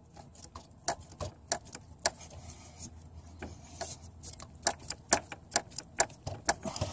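Irregular small clicks and taps of long-nose hose pliers and a loosened hose clamp as a coolant hose is worked loose from its tube. The clicks come faster in the second half.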